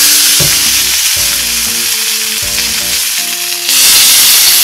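A thick bone-in sirloin steak sizzling hard in rendered beef fat in a very hot cast iron pan, pressed down with a spatula. This is the final sear of a reverse sear. The sizzle grows louder near the end.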